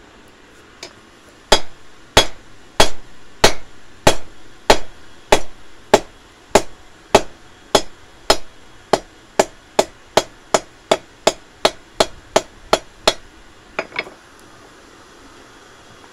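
Hand hammer striking red-hot steel on an anvil while forging a tent peg: about two dozen ringing blows, starting about one every two-thirds of a second and quickening to two or three a second, ending with two lighter taps.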